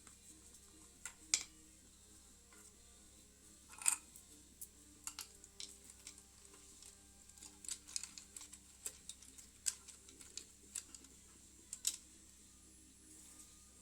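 Irregular light clicks and taps of metal hand tools and parts being handled during engine work, over faint background music.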